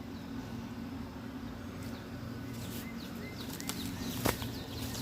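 Outdoor ambience: small birds chirping briefly over a steady low hum, with a sharp snap about four seconds in.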